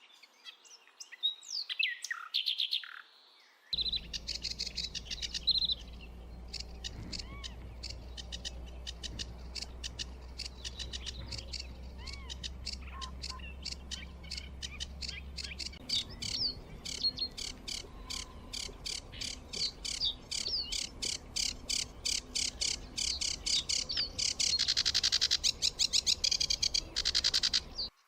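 Birds calling and singing in a quick series of high chirps. A sudden change about four seconds in brings a low steady rumble beneath the chirping, and a loud, dense high trill comes near the end.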